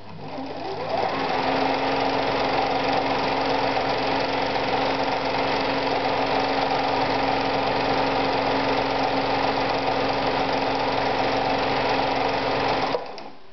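1966 Husqvarna Practica 4010 electric sewing machine sewing a dense satin-stitch zigzag at full width and very short stitch length, with a steady motor hum under the rapid needle mechanism. It runs up to speed over about a second, holds steady, and stops abruptly near the end.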